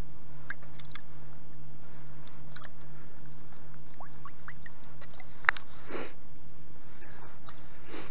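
Hands picking through bait on the ground: scattered small rustles and clicks, with one sharper click about five and a half seconds in, over a steady low hum.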